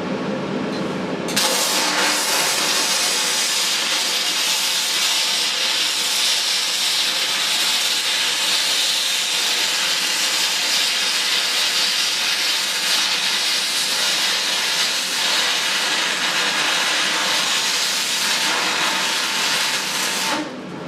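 Stick (MMA) welding arc from a STAHLWERK ARC 400 inverter welder burning as a steady crackling hiss. It strikes about a second in and cuts off suddenly just before the end.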